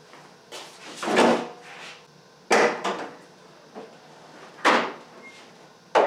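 A car's hood being opened: a few separate metal clunks and knocks as the latch is released and the hood is lifted and propped, the sharpest about two and a half and four and a half seconds in.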